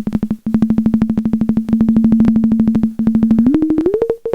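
Resonant filter in a Eurorack modular synth, turned up to self-oscillate at high resonance, giving a steady pitched tone pulsed rapidly at about ten pulses a second. Near the end the pitch steps up twice to a higher note.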